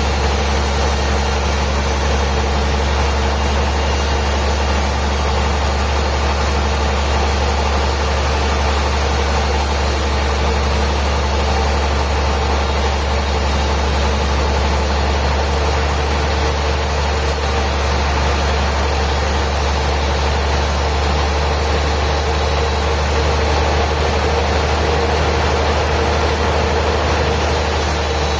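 Sawmill machinery running steadily, a constant loud low drone with no change in pitch or load.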